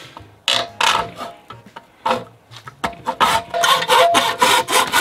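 Hacksaw cutting into 1-1/2" black ABS plastic pipe held in a vise, rasping strokes. A few separate strokes come first, then a quick run of strokes from about three seconds in.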